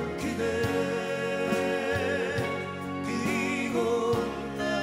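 Live folk-pop band playing: strummed acoustic guitars over drums and keyboards, with a wavering sung melody line above.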